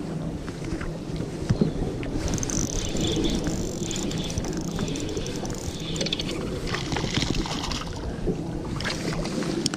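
Spinning reel being wound against a hooked fish, its handle and line working in short bursts of ticking, over a steady low hum. Near the end the fish splashes at the surface beside the boat.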